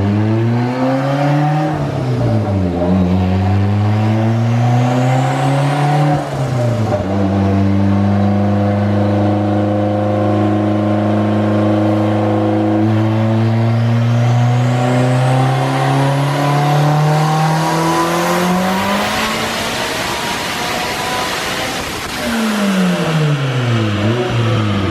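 Turbocharged all-wheel-drive wagon's engine making a full-throttle power pull on a chassis dyno at about 26 psi of boost. The revs climb and drop back with two gear shifts in the first six seconds, then rise steadily through one long pull for about twelve seconds before the throttle closes and the revs fall away.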